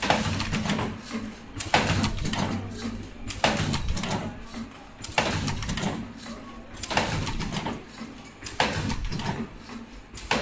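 Richpeace surgical mask production machine running, its mechanism cycling with a sharp clack and a short rattle about every second and three-quarters, over a faint steady high whine.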